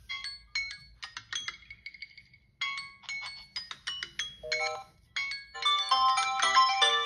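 Several smartphones ringing at once with timer alarm tones: short chiming melodic notes, sparse at first, turning into a dense overlapping jumble of tones from about six seconds in.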